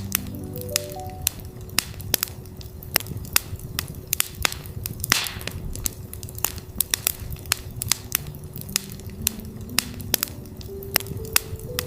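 Campfire crackling with frequent sharp pops and a brief hiss about five seconds in, over a steady 369 Hz tone. Soft ambient synth notes step up and down at the start and again from about nine seconds in.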